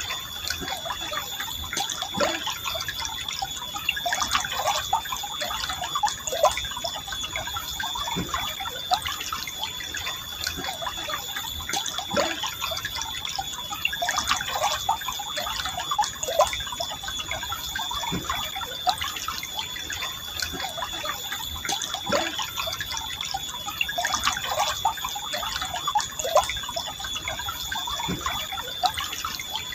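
Forest stream flowing gently, with a dense, steady patter of small splashes and gurgles. A thin steady high tone runs alongside.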